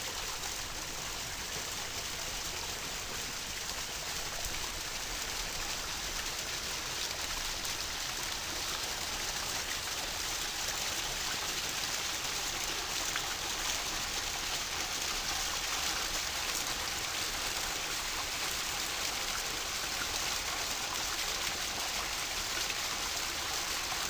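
Backyard pond waterfall splashing steadily as water spills down stacked-stone cascades and drops about two feet into the pond, pumped at about 4,000 gallons an hour.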